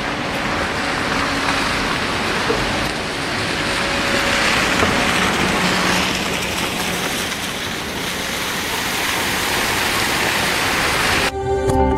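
Cars driving slowly through a flooded street: tyres hissing and swishing through deep standing water over a low engine hum, the water noise swelling as a car comes close in the middle. Music cuts in abruptly near the end.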